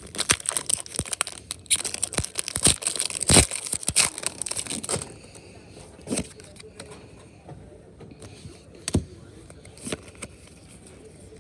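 Foil Pokémon booster pack wrapper crinkling and tearing open, a dense crackle for about five seconds. Then a few soft clicks as the cards are handled.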